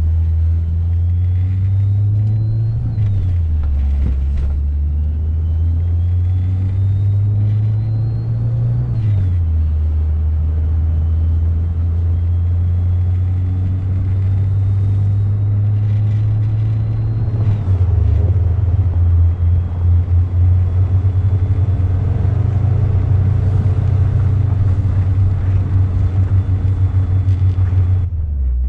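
1980 Volkswagen Rabbit pickup's engine pulling through the gears. The revs climb and drop back at two upshifts, about 3 and 9 seconds in, then hold steady at cruise, with a thin whine that follows the revs. From about 18 seconds in, rapid wind buffeting on the microphone.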